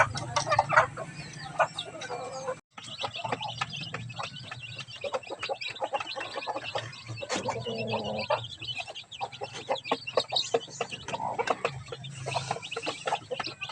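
Chickens clucking in many short, repeated calls, the Rhode Island Red hen among them, broken by a sudden brief dropout a little over two seconds in.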